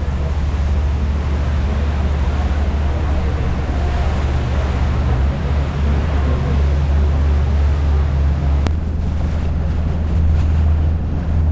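A river sightseeing boat under way: its engine running with a steady low rumble, mixed with water rushing past the hull and wind blowing on the microphone.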